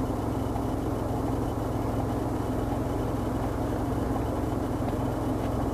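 Car engine idling steadily, a low even hum heard from inside the cabin.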